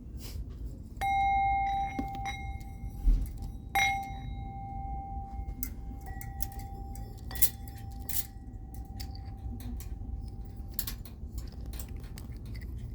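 A hard object struck twice, ringing with one clear steady tone that fades slowly over about ten seconds, among light clinks and taps of items being handled.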